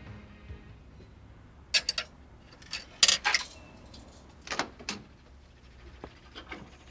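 A few clusters of sharp metallic clicks and clatters, small hard objects being handled, over low room noise.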